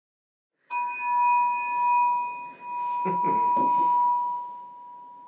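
A small metal plate hanging from a string is struck once and rings with a clear, bell-like tone that slowly dies away. A couple of soft knocks come about three seconds in.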